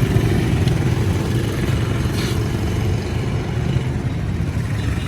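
A motor vehicle's engine running steadily on the move, a low even drone with road noise.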